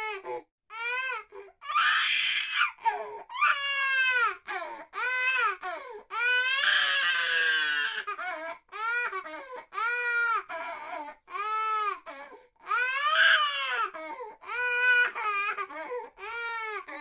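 A baby crying hard: a run of short wails about a second each, rising and falling in pitch, with a longer, harsher cry about six seconds in and another loud wail near the thirteen-second mark.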